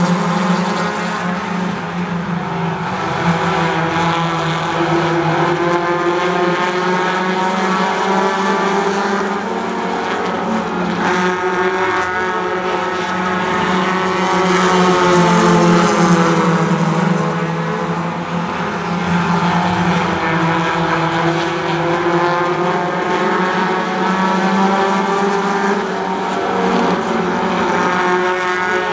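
A pack of Honda four-cylinder Street ModZ import race cars running hard around a paved oval, several engines revving over one another. The pitch rises and falls as cars accelerate out of the turns and pass close by, loudest around the middle.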